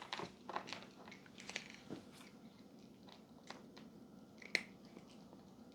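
A pet crunching on cookie treats: faint, irregular crunches and clicks, with a brief high squeak about four and a half seconds in.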